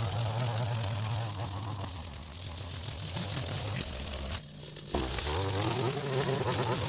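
A strimmer running under load as its cutting line works through long wet grass, a steady engine note with a bright hiss of cutting. About four and a half seconds in the sound drops away sharply for half a second, then picks straight back up.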